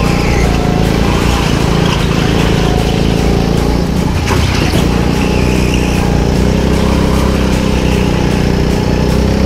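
Indoor rental go-kart engine running under load from the driver's seat, its pitch rising near the end as the kart accelerates.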